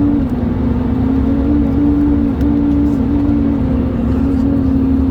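Airbus A320 cabin noise: a steady low rush with a loud droning hum on top that steps back and forth between two close pitches every second or so. This is the strange noise the passenger noticed during turbulence.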